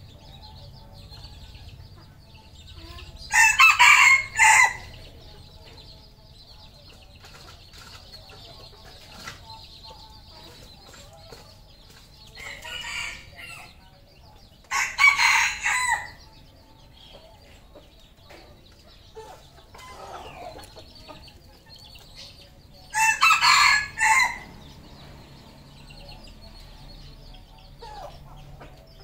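Red junglefowl roosters crowing: three loud, short crows about ten seconds apart, each lasting about a second and a half, with a fainter crow between the first two.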